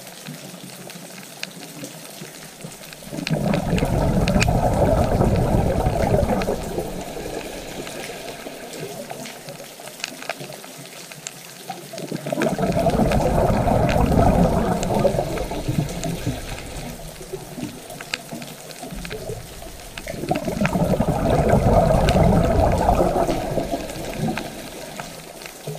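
Water rushing in three slow surges, each swelling and fading over several seconds.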